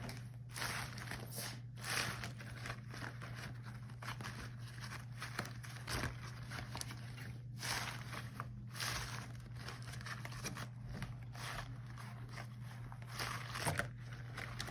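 Rubber gloves handled close to the microphone: irregular rubbing and crinkling swishes with an occasional sharper snap-like click, one near the end, over a steady low hum.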